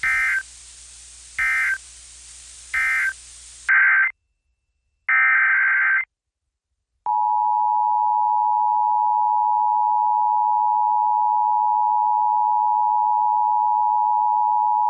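Emergency Alert System tones: three short data squawks about 1.4 s apart, the end-of-message bursts, then two more data bursts for the next alert's header. About seven seconds in, the steady two-tone EAS attention signal (853 and 960 Hz) starts and holds.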